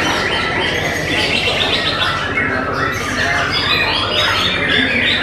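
Several white-rumped shamas singing at once, a dense overlapping stream of loud whistles, chirps and quick rising and falling phrases with no pause.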